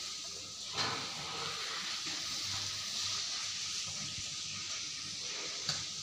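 A steady hiss, with a faint short sound a little under a second in and another near the end.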